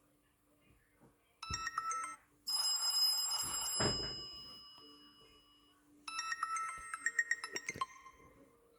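TCL 505 phone playing electronic ringtones through its speaker: a short run of bright notes, then a louder chime with long ringing tones that slowly fades, then another quick run of notes about six seconds in. A low thump comes about four seconds in.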